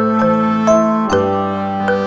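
Instrumental music: a melody of struck notes over held bass tones, changing pitch every half second or so.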